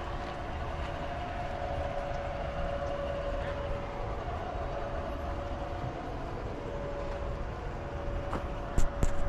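Garden-scale model train running on its track: a steady motor whine over a low rumble, with a couple of sharp knocks near the end.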